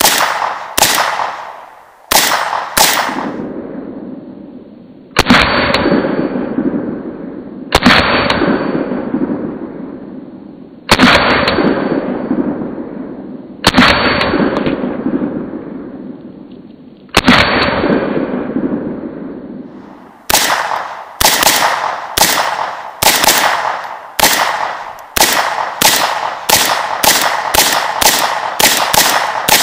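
A Norinco AK-47 rifle firing 7.62x39mm rounds, each shot followed by a long fading echo. There are a few shots in the first three seconds, then single shots about three seconds apart. About two-thirds of the way in comes a fast string of about twenty shots, close to two a second and speeding up.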